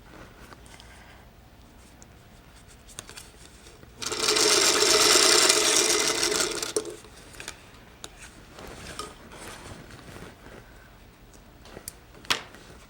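Sewing machine stitching a seam in one burst of about three seconds, a few seconds in, with quiet fabric handling before and after.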